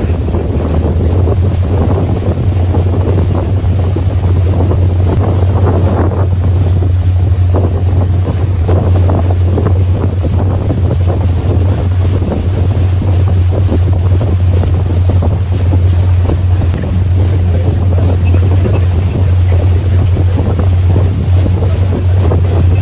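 Motor yacht's engine running steadily under way, a constant low drone, with wind buffeting the microphone.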